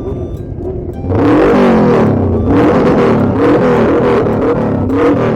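Motorcycle engine accelerating, suddenly louder about a second in, its pitch rising and dropping again and again as it revs up through the gears.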